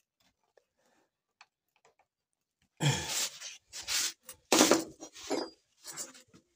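A few faint clicks as pliers crimp the clip tabs of a radiator's plastic top tank. About three seconds in comes a run of loud scraping and knocking clatters as the radiator is lifted and turned.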